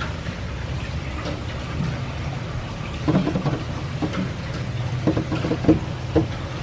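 Steady rain hiss, with a few short muffled vocal sounds about three, four, five and six seconds in.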